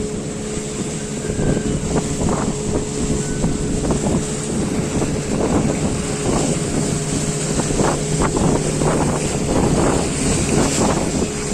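A fishing boat's motor running steadily under way, with water rushing and splashing against the hull and wind buffeting the microphone.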